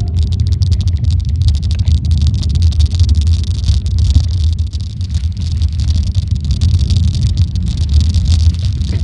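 Heavy wind buffeting on the microphone and rattling trail rumble from a Cannondale Scalpel 29 alloy mountain bike descending a rough dirt trail at speed.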